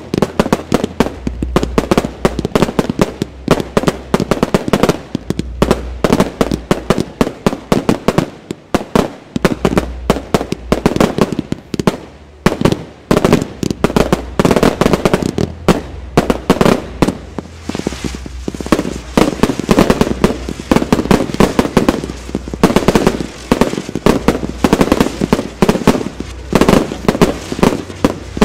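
Fireworks finale: a dense, continuous barrage of shell bursts and bangs, many reports each second.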